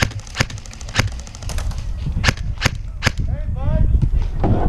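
Airsoft guns firing: a string of sharp snapping shots, loud ones about every half second, ending about three seconds in.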